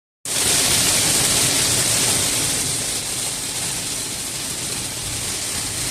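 Cloudburst of heavy rain and hail pelting a moving car: a dense, steady hiss that starts a moment in and eases slightly after about two seconds.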